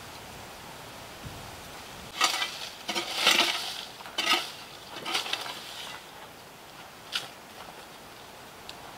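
Irregular rustling and crunching of movement through dry grass, twigs and leaves, in a handful of bursts from about two to six seconds in, with a single click about seven seconds in, over a steady outdoor hiss.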